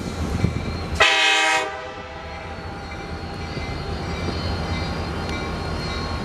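Diesel freight locomotive's air horn sounding one short blast about a second in, over the steady rumble of the locomotive and train moving along the track.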